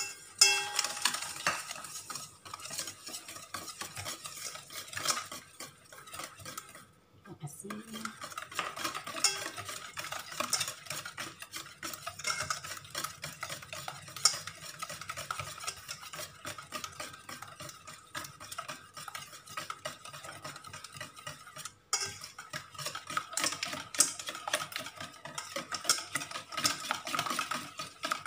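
A wire whisk beating eggs and sugar in a stainless steel mixing bowl: a fast run of clicks and scrapes of wire against the metal, with two brief pauses, about a quarter of the way in and again about three-quarters through.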